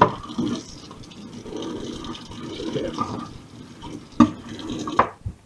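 Kitchen tap running water into a sink, with a few knocks of things being handled in it; the water stops shortly before the end.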